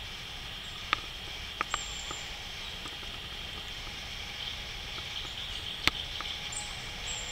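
Steady outdoor background noise with a few sharp clicks: one about a second in, two close together soon after, and the loudest near the end. Faint short high chirps come near the end.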